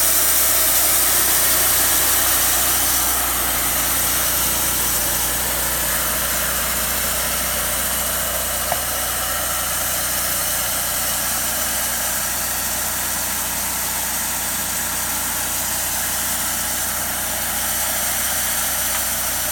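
Sawmill running steadily while sawing an ash log, its engine and saw making a continuous mechanical drone with a high hiss, easing slightly about three seconds in.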